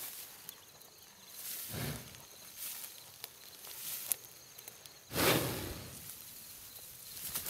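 American bison bull grazing close by: irregular bursts of grass tearing and rustling as it crops, the loudest starting suddenly about five seconds in.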